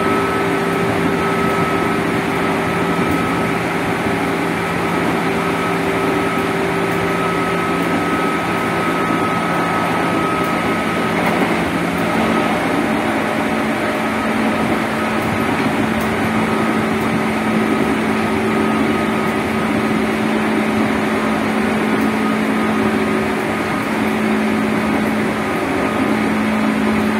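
JR 205 series motor car (MoHa 205) running at speed, its traction motors giving a steady high-pitched whine over the roar of wheels on rail. About halfway through, the lowest tone steps up slightly.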